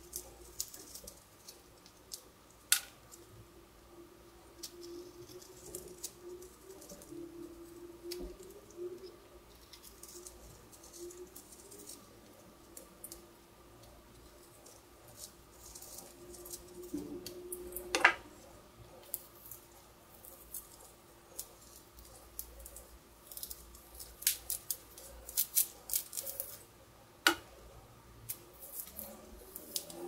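Orange peel being scored with a Victorinox Swiss Army knife tool: faint scraping and crackling of the rind, with a few sharp clicks, the loudest about 18 seconds in. Near the end comes a run of crisp tearing crackles as the peel is pulled away by hand.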